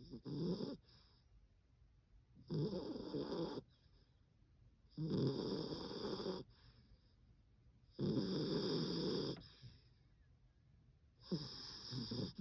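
A poodle snoring in its sleep: five snores, each about a second long, coming every two and a half to three seconds with quiet breathing gaps between.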